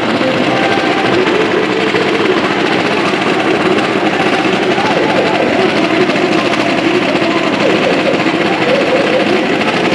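Small motorcycle engines running steadily in a continuous din.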